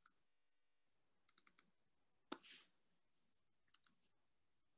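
Faint clicks from someone working a computer against near silence: four quick clicks about a second and a half in, a single louder click a little later, and two more near the end.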